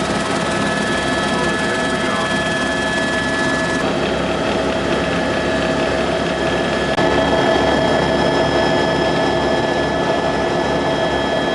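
Tour helicopter's turbine engine and rotor running steadily: a high whine over a loud rushing noise. The sound shifts abruptly about four and about seven seconds in.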